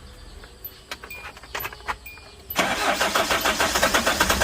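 A few faint clicks, then about two and a half seconds in the starter motor begins cranking the Kia Bongo 3's J3 2.9-litre four-cylinder common-rail diesel, turning it over in a steady, even rhythm without it firing. The engine cranks but won't start, which the mechanic puts down to air in the injectors after a leaking priming pump.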